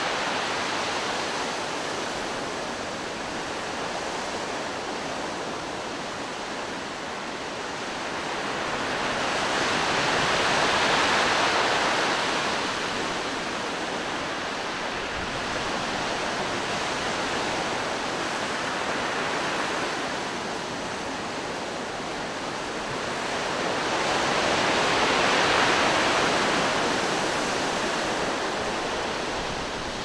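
Sea surf breaking on a rocky shore: a continuous rushing wash that swells twice into louder surges, about a third of the way in and again near the end.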